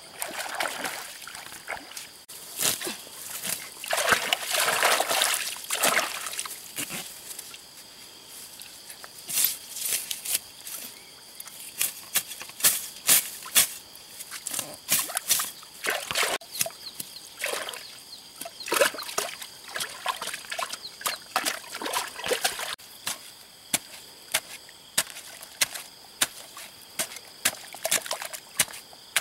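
Water splashing and sloshing as hands work in shallow muddy water. This is followed by a long series of sharp knocks and wet thuds as a stick and then a long pole dig mud out of a waterlogged hole.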